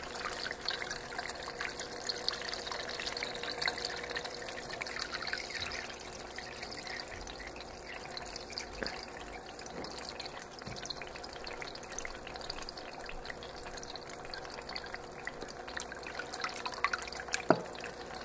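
Water being poured gently into a freshwater aquarium, trickling and splashing into the tank water, with a faint steady hum underneath.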